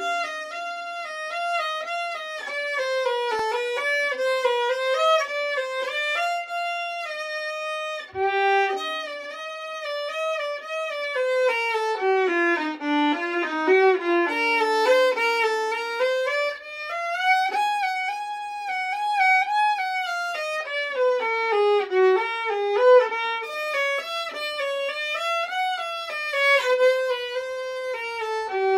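Solo violin played with the bow: a single melodic line of notes running smoothly into one another, rising and falling, with a brief break about eight seconds in.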